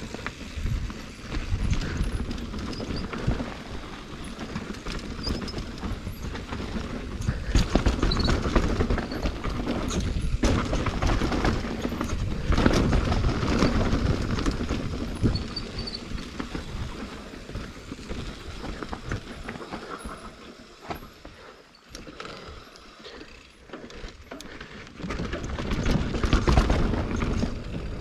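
Mountain bike riding down a natural trail: tyres rolling over dirt and roots with frequent knocks and rattles from the bike, over a low rumble. It eases off for a few seconds about three quarters of the way through, then gets louder again near the end.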